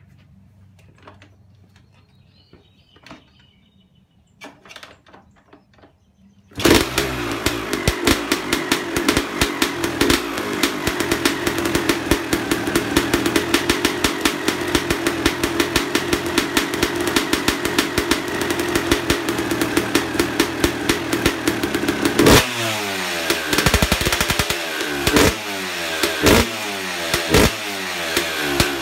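A Suzuki RM250 two-stroke engine, fitted with an FMF Gold Series expansion pipe and FMF Shorty silencer, fires up about six and a half seconds in. It runs steadily, then is revved in repeated blips that rise and fall back, near the end.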